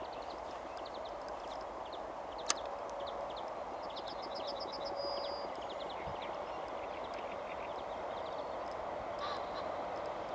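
Birds chirping and calling over a steady background murmur, with a quick trill of repeated high notes about four to five seconds in. One sharp click about two and a half seconds in.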